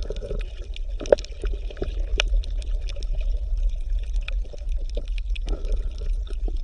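Water ambience: a steady low rumble with a faint wash and scattered small drips or splashes, like gurgling water.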